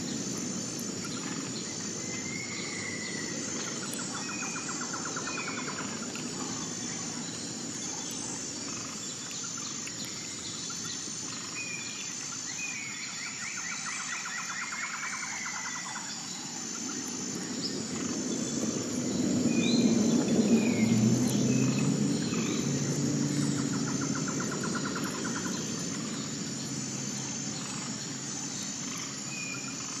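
Outdoor ambience: birds giving short falling chirps and trills over a steady high insect buzz, with a low engine drone that swells up and fades away in the middle.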